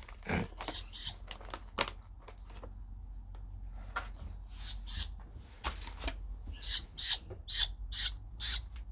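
Owl chicks giving short, high, hissy begging calls while being hand-fed, a few at a time at first and then in a quick run of about seven calls near the end, with a few sharp clicks between them.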